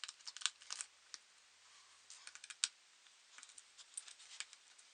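Faint, irregular small clicks and ticks of a screwdriver working the small Phillips screws that hold a laptop's battery in place, in scattered clusters.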